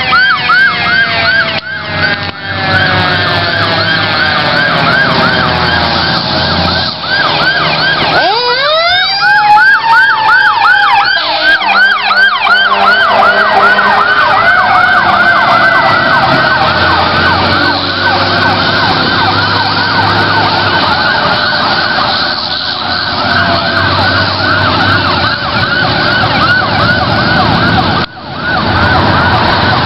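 Several fire apparatus sirens sounding at once, fast yelps overlapping slower wails. About eight seconds in, a lower-pitched siren rises steeply and then slowly falls away.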